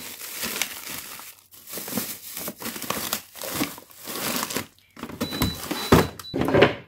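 Plastic bags of frozen food rustling and crinkling as they are shifted about in a freezer drawer, ending in a few heavier knocks. A faint high steady beep comes and goes in the background.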